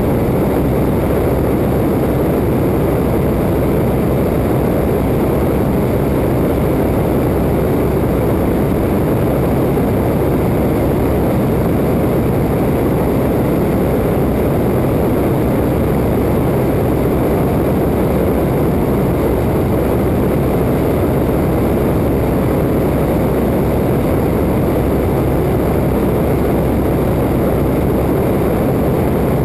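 Open-cockpit Waco biplane in flight: engine and propeller running steadily, mixed with wind rushing over the outside-mounted microphone.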